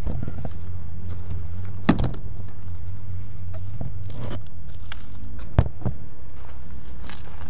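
Handling noise: a few sharp knocks and rattles, the loudest about two seconds in and again at about five and a half seconds, as the FPV camera is moved. Underneath, a steady low hum with a thin high whine.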